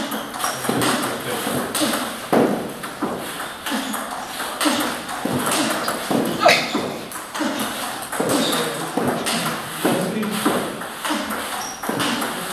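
Table tennis rally: a celluloid-type ball being struck by rubber-faced bats and bouncing on a Tibhar Smash 28/R table, making a steady run of sharp pings and taps about once or twice a second.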